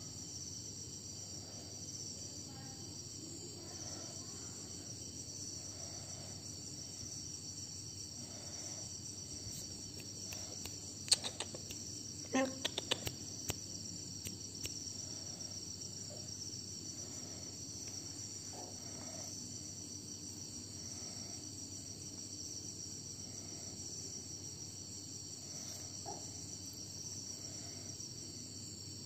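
Steady high-pitched insect chorus with a low hum beneath, and a handful of sharp clicks about halfway through.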